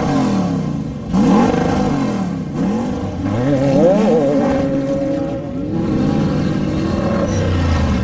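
Off-road desert race vehicle's engine revving up and down, its pitch rising and falling several times as it accelerates and backs off.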